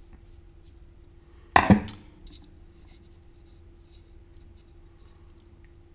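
A small nylon screw being backed out of a computer graphics board with a screwdriver and then by hand: faint scratching and small clicks, with one louder knock about a second and a half in.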